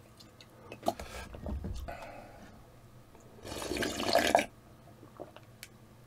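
A person slurping ramen broth straight from a tipped bowl: one loud slurp lasting about a second, a little past the middle. Before it come a light click and a few quieter sips.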